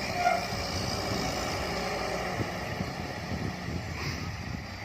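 Steady low rumble of an engine running, with no distinct knocks or revving.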